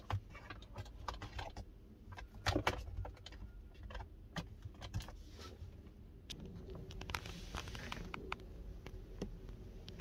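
Handling noise from fitting a mirror dashcam over the factory rear-view mirror: scattered small plastic clicks, taps and rattles, with a louder cluster about two and a half seconds in.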